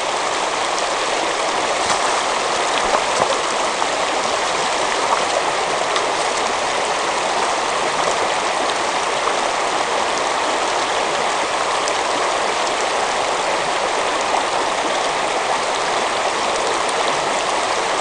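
Shallow river rushing over a cobble and gravel bed, a steady wash of running water.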